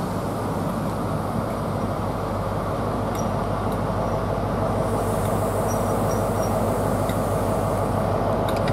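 CrossCountry HST moving slowly along the platform, its Class 43 diesel power car running with a steady low drone over the rumble of the coaches.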